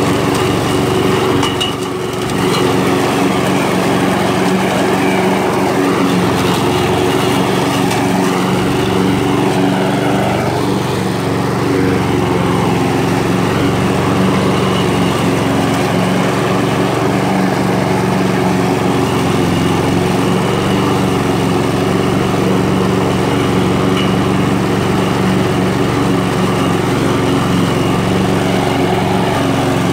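Walk-behind gasoline lawn mower engine running steadily at a constant speed while mowing grass, with a brief dip in level about two seconds in.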